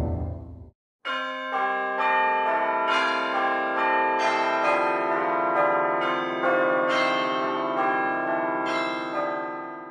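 Music of sustained bell-like chime tones: notes enter one after another about every half second and ring on together as layered chords, fading near the end. It begins just after the tail of a falling swoosh and a brief gap.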